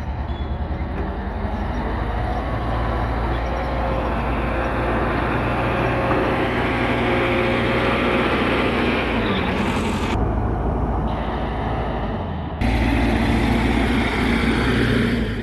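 Diesel engine of heavy road-construction machinery running steadily with a low, even pulsing rumble. About two-thirds of the way through the sound changes abruptly and gets louder.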